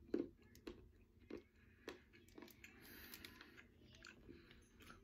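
A person biting into and chewing a piece of chocolate bar, with faint crunches about every half second.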